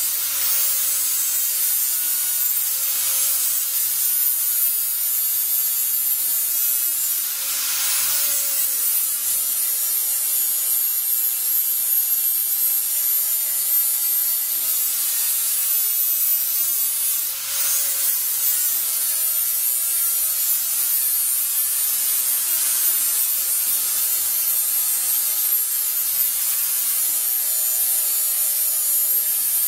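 Handheld electric angle grinder running steadily with an abrasive disc ground against the edge of a sheet-steel panel: a continuous high motor whine over a grinding hiss, as the panel's cut edge is dressed smooth.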